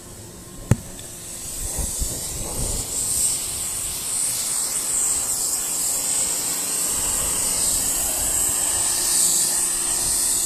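Yard Force compact pressure washer's jet spraying: a loud, steady hiss that builds up over the first couple of seconds, after a single sharp click near the start.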